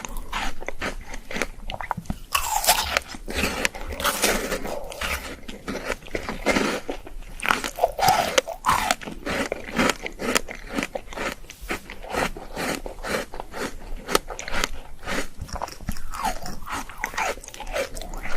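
Ice being bitten and chewed close to the microphone: a steady run of sharp, rapid crunches.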